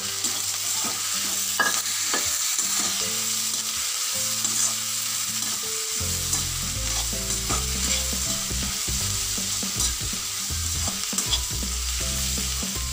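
Sliced onions and green chillies sizzling in hot oil in a metal kadai as they are sautéed, stirred with a perforated metal spatula that clicks and scrapes against the pan now and then.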